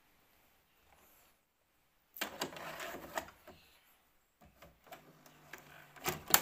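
A VHS cassette being handled and loaded into a VCR: a clatter of plastic about two seconds in, then mechanical clicks and a brief low motor hum from the deck, with sharper clicks near the end.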